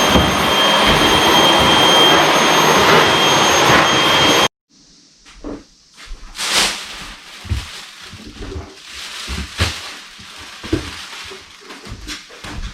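Vacuum cleaner running with a steady whine, stopping abruptly about four and a half seconds in. The rest is scattered knocks and rustling.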